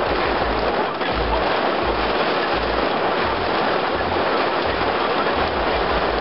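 Intense rain falling in a thunderstorm as a steady, loud hiss, with gusts of wind buffeting the microphone in uneven low rumbles.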